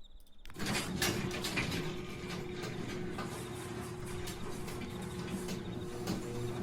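Sears garage door opener starting about half a second in and running steadily as it closes the door: a constant motor hum with many small clicks and rattles from the drive and door.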